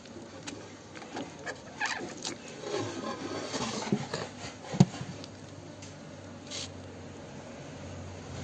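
Scattered taps, knocks and rustling, with one sharp knock about five seconds in; a low hum comes in near the end.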